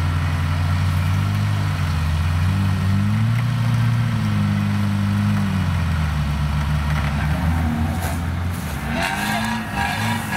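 An off-road 4x4's engine revving up and down repeatedly. Near the end the engine sound thins out and scattered clicks and rustling come in.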